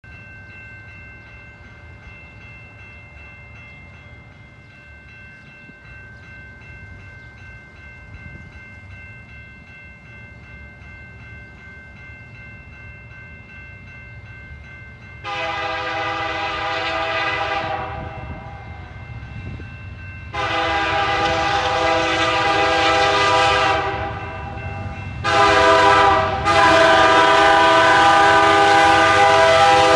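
Diesel freight locomotive horn sounding the grade-crossing signal: two long blasts, a short one, then a final long blast still sounding at the end. The blasts begin about halfway through, over the low rumble of the approaching train.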